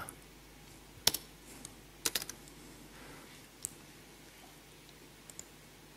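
A few scattered laptop keystrokes: one sharp tap about a second in, a quick run of three or four taps at about two seconds, then a few lighter taps.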